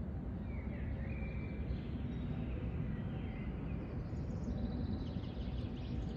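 Birds calling faintly over a steady low rumble: short rising and falling chirps in the first half, then quick rapid trills, higher in pitch, near the end.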